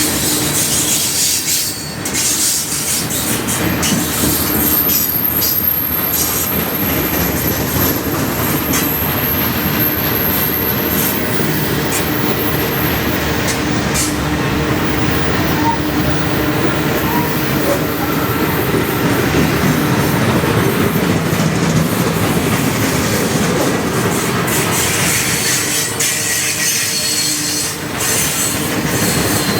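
The cars of a long freight train rolling past close by, wheels clattering over the rail joints. A thin, high wheel squeal rings out from about four seconds in until about thirteen.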